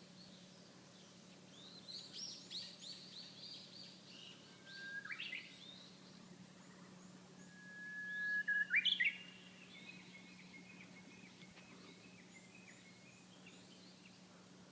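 Japanese bush warbler singing its hoh-hokekyo song twice: each time a long held whistle that breaks into a quick rising flourish, the second, about 8 seconds in, the loudest. High, quick chirps come before them and softer twittering after.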